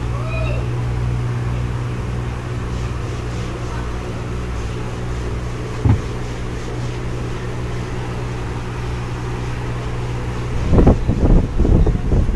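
Steady electrical hum of aquarium equipment, such as an air pump or filter, over a hiss of rising air bubbles. One knock about six seconds in, and a cluster of low bumps near the end.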